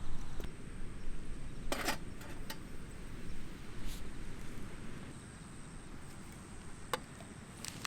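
Wind buffeting the microphone as a fluctuating low rumble, with a few short clicks or taps of handled gear.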